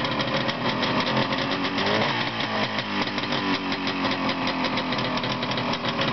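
Single-cylinder two-stroke motorcycle engine running steadily in gear on a test stand, its exhaust firing as a fast, even patter. About two seconds in, a brief whine rises and falls.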